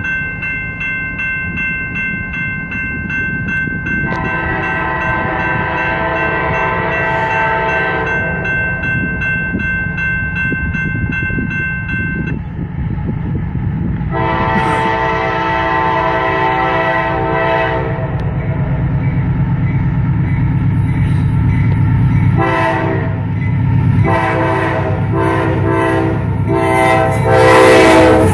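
A railroad crossing bell rings, then the CSX AC6000 diesel locomotive sounds its horn in the grade-crossing pattern: two long blasts, a short one and a final long one. Under the horn the locomotive's engine rumble grows louder until it reaches the crossing near the end.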